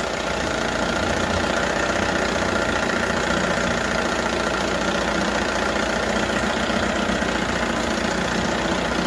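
1978 Johnson 6 hp two-stroke twin outboard motor running steadily at low speed.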